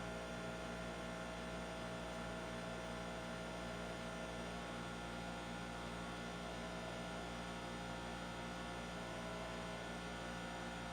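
Steady electrical mains hum and buzz with faint hiss, unchanging throughout.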